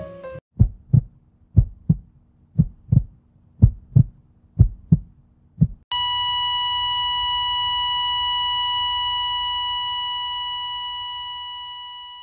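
Heartbeat sound effect: low thumps in lub-dub pairs about once a second, five or six beats. They give way about six seconds in to a loud, steady high-pitched beep that slowly fades near the end.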